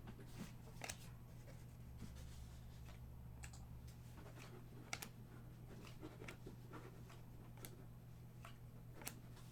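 Faint, irregular clicks and soft rustles of trading cards being handled and flipped through, over a steady low hum.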